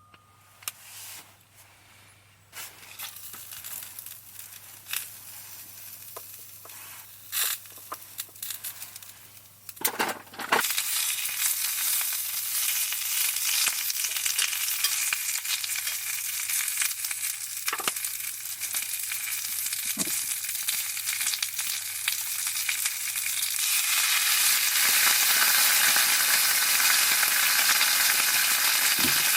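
Food sizzling in a hot pan. A few light clicks and knocks come first, then loud frying sets in about ten seconds in and grows louder near the end.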